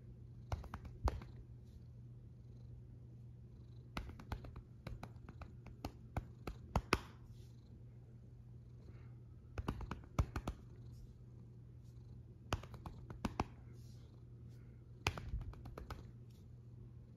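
Long-haired tortoiseshell cat purring steadily while being stroked, with scattered soft clicks and rustles of a hand moving over its fur.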